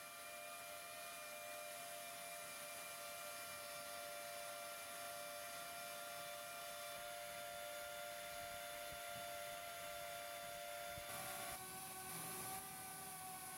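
Portable milling machine's motor running with a steady whine of several fixed pitches. About eleven seconds in the pitches shift, then waver slightly.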